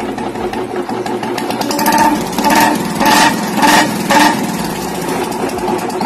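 Royal Enfield Bullet 350 single-cylinder engine running through its original silencer, before the whistle-type baffle is fitted. It runs at a steady beat, with about five short louder bursts in quick succession between two and four seconds in.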